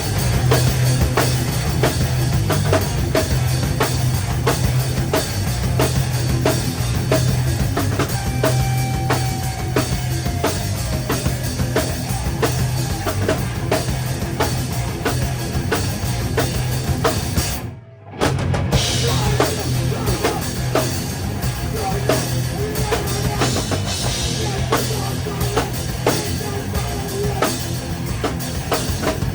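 A live rock band playing loud and fast, with the drum kit to the fore and guitars and bass underneath. About two-thirds of the way through the music cuts out suddenly for about half a second, then comes back in.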